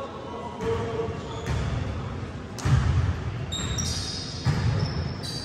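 A basketball bouncing on a hard court floor: about four low thuds roughly a second apart, with a few short high squeaks in the second half.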